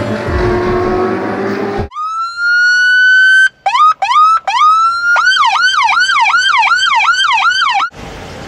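Intro music ends about two seconds in, and the police siren of a 2014 Dodge Charger Pursuit sounds. It gives one long rising wail, then a few short whoops, then a fast yelp cycling about three times a second, and cuts off suddenly near the end.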